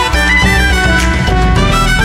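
Background music: a salsa-style Latin tune with brass, playing at full level throughout.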